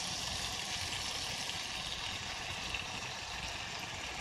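Butter melting and sizzling steadily in a small saucepan on an electric hot plate.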